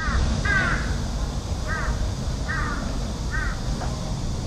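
A crow cawing: five short, harsh calls spaced under a second apart, over a steady low rumble.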